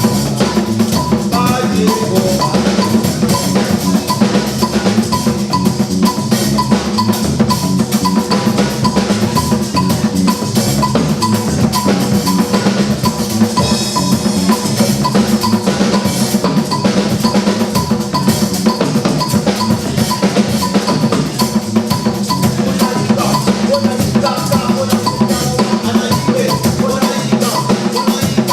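Percussion music: drums playing a dense, continuous rhythm with closely packed strokes and no break.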